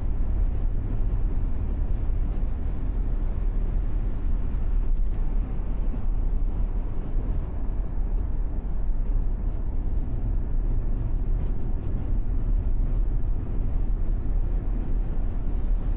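Steady road noise of a moving car heard from inside the cabin, a low, even drone of tyres and engine with no sudden events.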